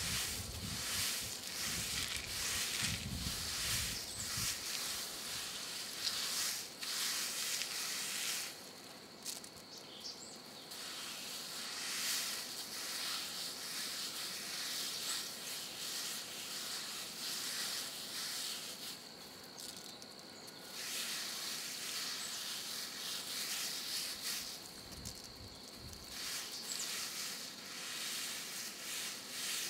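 Coffee beans poured from a sack and scattered by hand onto a concrete patio: a dry, rustling rattle that comes and goes in spells of a few seconds. Behind it runs a steady high insect drone.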